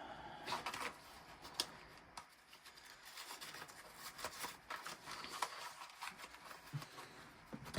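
Paper banknotes and cash envelopes rustling and flicking as bills are handled and counted by hand, in a run of small, irregular crinkles and clicks.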